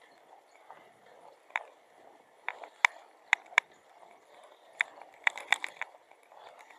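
Sharp, irregular taps and clicks, a few spaced out and then a quick cluster of five or six about five seconds in, over a faint steady background hum of ambient noise.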